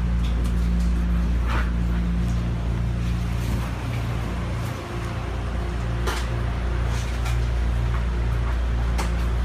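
Steady low electrical hum inside a stopped BART rapid-transit car, with a few faint clicks and knocks.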